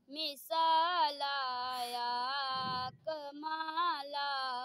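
A boy singing an Urdu naat unaccompanied, in long held notes that waver and bend in pitch, with a short break for breath partway through.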